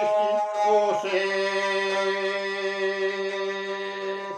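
Albanian lahuta, a single-string bowed folk fiddle, played with a bow under a man's chant-like singing of a heroic epic song; about a second in, the voice and the lahuta settle on one long, steady held note.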